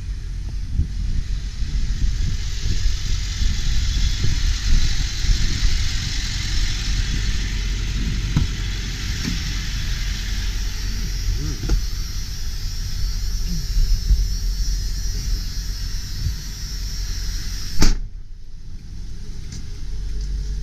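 Ford 7.3L Power Stroke V8 turbo diesel idling, with irregular low thumps and a hiss over it. About eighteen seconds in a single sharp slam, like a vehicle door shutting, after which everything is quieter and duller.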